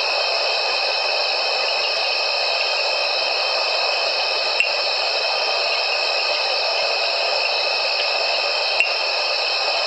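Evening insect chorus: many insects calling at once in a dense, unbroken high-pitched drone at several steady pitches. Two sharp ticks stand out, one in the middle and one near the end.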